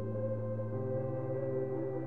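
Ambient background music: slow, sustained chords held steadily, with the low note changing partway through.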